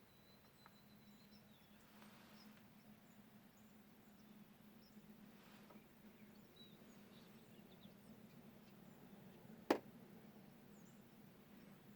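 Quiet outdoor morning ambience: faint scattered bird chirps over a low steady hum, with a thin high tone for the first second and a half. A single sharp click sounds near the end.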